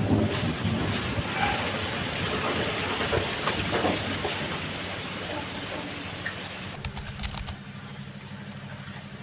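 Steady hiss of rain, fading away over several seconds, then a few sharp clicks about seven seconds in, followed by a steady low hum.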